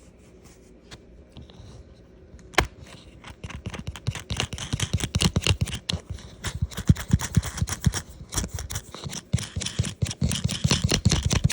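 Small metal nut being threaded by hand onto a 6-32 machine screw through a plastic tote latch handle: one sharp click, then a long run of quick small clicks and rattles of metal and plastic.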